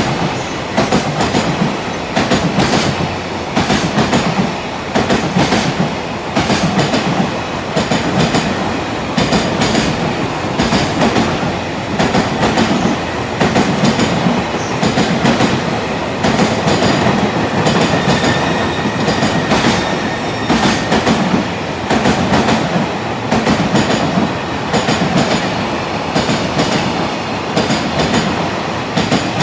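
Container freight wagons of a JR Freight train running through a station, their wheels clattering rhythmically over rail joints in repeated groups about once a second.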